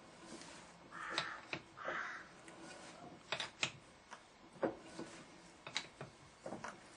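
Scattered light clicks and knocks of a workpiece being set up and centred in a lathe chuck, with two short harsh calls about a second and two seconds in.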